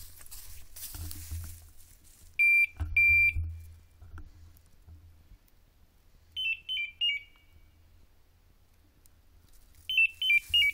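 Electronic beeper collar on a pointing dog working thick cover: two long steady beeps about two and a half seconds in, then short runs of quick beeps stepping down in pitch at about six and a half seconds and again near the end. The beeps signal where the dog is in cover too dense to see it.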